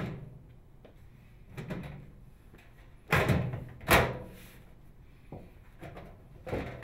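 Sheet-metal outer cover of a microwave oven being slid and pressed back onto the cabinet: metal knocks and clunks. The two loudest come about three and four seconds in, with smaller ones before and near the end.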